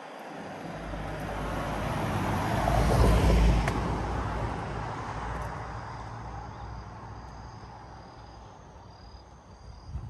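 A motor vehicle drives past, its engine and road noise swelling to a peak about three seconds in and then fading away slowly.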